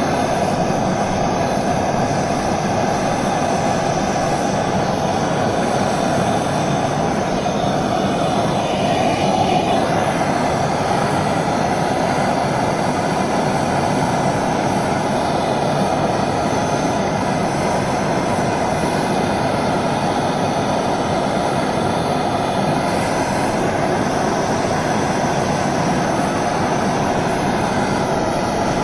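Handheld gas torch burning steadily, a continuous even hiss, used to heat a copper pipe joint for soldering.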